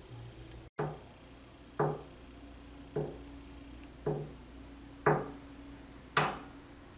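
Pencil tapping on a wooden desk: six slow, evenly spaced taps, about one a second, each with a short hollow thud.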